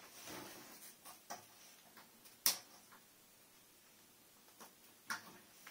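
A few light, irregular clicks and taps, the sharpest about two and a half seconds in, from LED tester probes and hands working over the TV's LED backlight strips.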